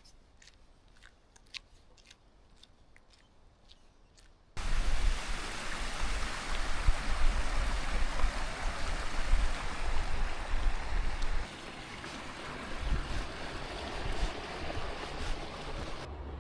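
Faint scattered taps and drips. Then, about four and a half seconds in, a sudden cut to loud, steady rushing water with a low rumble, which eases a little about two-thirds of the way through.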